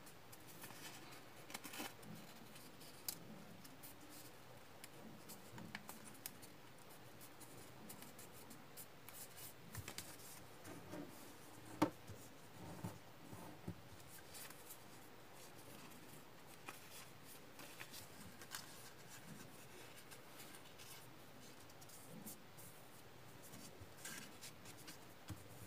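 Faint rustling and creasing of a small sheet of origami paper as fingers fold it and press the folds flat against a wooden tabletop, with scattered small clicks and one sharper tick near the middle.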